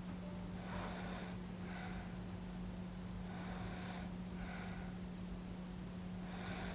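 A sleeping person breathing slowly and audibly, each breath a soft in-breath and out-breath, about two breaths in all, over a steady low hum.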